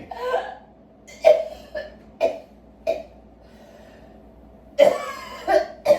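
A woman coughing, a staged cough for a prank: several short coughs in the first three seconds, a pause, then a few more near the end.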